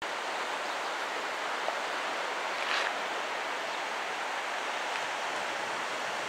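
Steady hiss of gentle surf washing onto a sandy beach, with a brief louder rush about three seconds in.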